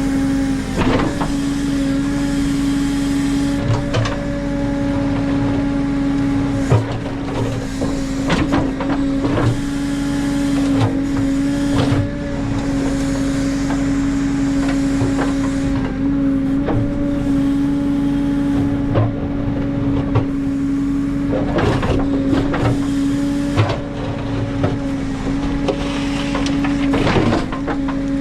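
JCB 3CX backhoe loader's diesel engine running at steady high working revs while the backhoe digs, with a steady hum. Sharp clanks and knocks come every few seconds, several close together around 21 to 22 seconds in and again near the end.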